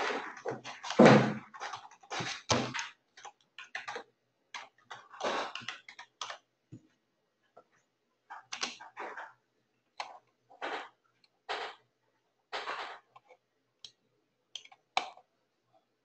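Typing on a computer keyboard: irregular clusters of keystrokes with pauses of a second or two between them.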